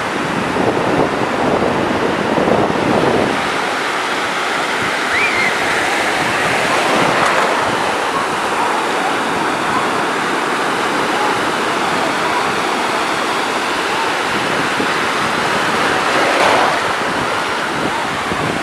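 Small ocean waves breaking and washing up on a sandy beach: a steady rush of surf that swells briefly a couple of times.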